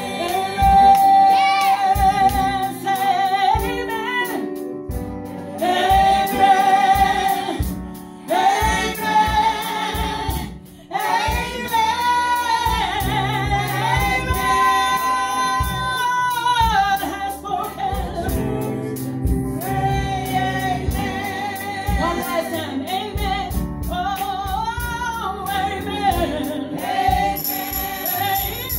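Gospel song sung in phrases of long held, wavering notes over steady low accompaniment notes, with short breaks between phrases.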